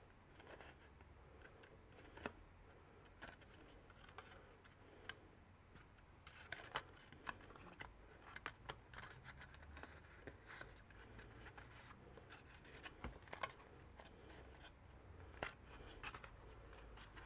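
Faint rustles and scattered small clicks of card being handled as a thin gold card strip is pressed and wrapped around a card tube, the clicks coming more often from about six seconds in.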